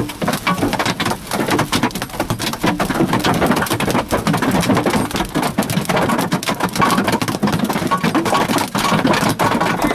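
Large wind-driven hail pelting a car's windshield and body, heard from inside the cabin: a loud, dense, unbroken clatter of hard impacts. The pounding is heavy enough that the windshield is feared to be breaking.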